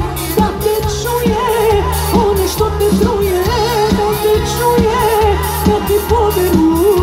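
Live Serbian pop-folk band playing with a steady drum beat, pulsing bass and a wavering, ornamented lead melody.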